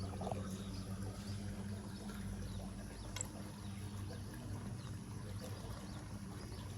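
Steady rush of river water, with a low hum and a few faint small clicks.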